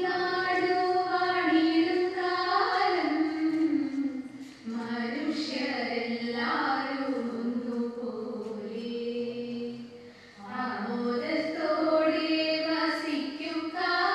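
A small group of young women singing a song together into a microphone, without instruments, in long held phrases with two short breaks, about four and a half and ten seconds in.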